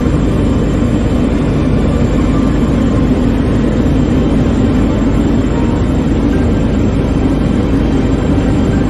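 Helicopter running on the ground with its rotor turning, a loud, steady low rumble heard close up.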